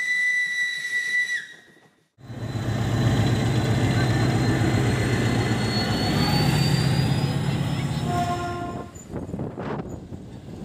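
Steam locomotive whistle sounding one steady note for about a second and a half. It is followed by a diesel locomotive's engine running loudly close by, an SM42 shunter, which fades to quieter train noise near the end.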